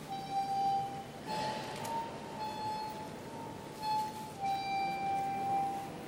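Stone sound sculpture (pietra sonora) rubbed by hand, giving a delicate sustained singing tone that steps between a few close pitches, each note held for about a second. A soft swish of rubbing rises briefly under the tone about a second and a half in.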